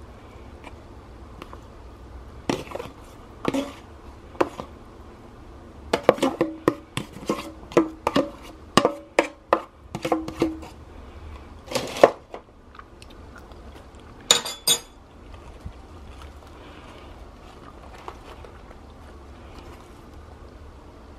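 Metal spoon scraping and knocking against a thin aluminium foil tray as coleslaw is scooped out: scattered clicks, then a quick run of scrapes and taps for a few seconds, then two brighter metallic clinks.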